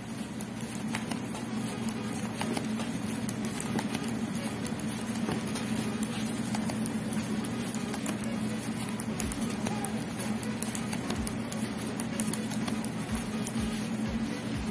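Metal knitting needles clicking and yarn rustling as rows are knitted by hand, with small irregular ticks over a steady low hum.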